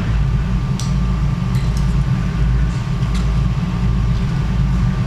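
Steady low machine hum, with a faint high tone above it and a few light clicks.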